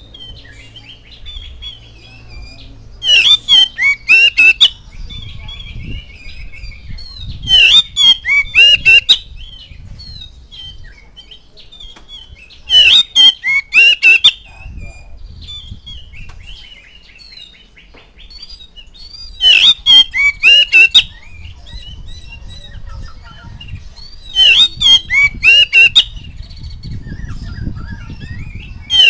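Male Oriental magpie-robin singing: five loud phrases of rapid, harsh notes, each about a second and a half long, with softer warbling and whistles between them.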